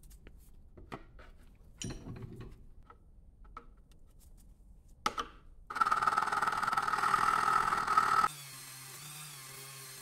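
Small clicks and taps of handling a cast aluminum coin at a bench vise. About six seconds in comes a loud, continuous scraping as a hand file works the coin's edge, then it cuts off and a Dremel rotary tool runs with a steady hum, spinning a small brush against the coin.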